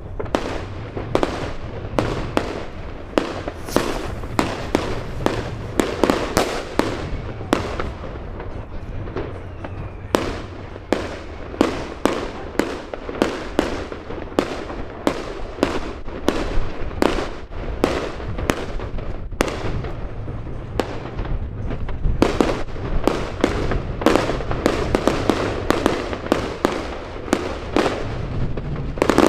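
Fireworks going off in a continuous barrage: many sharp bangs and cracks in quick succession, a few a second, over a steady low rumble.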